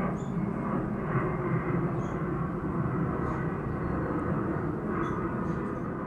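Jet airliner flying overhead: a steady, even rumble.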